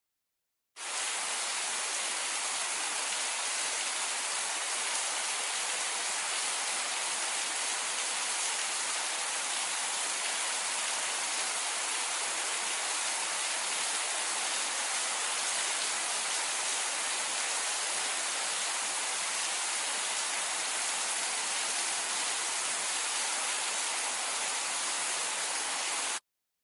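Steady rain falling, an even hiss with no separate drops or thunder standing out. It starts abruptly about a second in and cuts off abruptly near the end.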